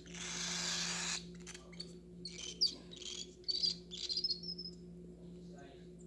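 A baby cockatiel gives a series of short, high chirps, the loudest a little after two seconds in, with a brief gliding call near the end. It is preceded by about a second of soft hissing noise. A steady low hum runs underneath.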